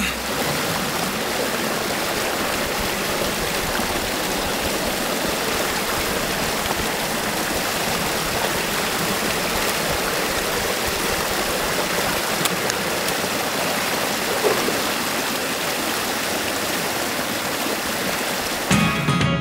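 Water rushing steadily through a breach in a beaver dam, spilling as white water down into the stream below while the dammed pond drains.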